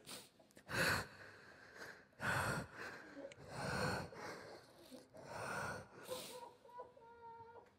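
A man weeping: a series of short, noisy sobbing breaths and sniffs, about a second apart.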